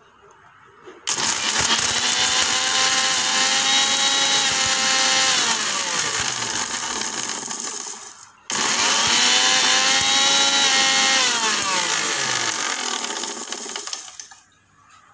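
Butterfly mixer grinder running twice with egg shells in the jar, grinding them to powder to sharpen the blades. Each run starts abruptly at full loudness, about a second in and again about halfway through, and falls in pitch as it winds down before stopping.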